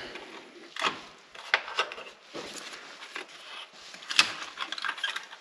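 Hands undoing the latches and working the cover off a Spra-Coupe 7660 sprayer's engine air filter housing: a string of sharp clicks and knocks with rubbing between them, the loudest knock about four seconds in.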